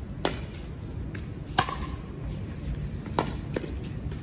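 Pickleball rally: paddles hitting the hollow plastic ball, six sharp pops in all at uneven spacing, the loudest about a second and a half in.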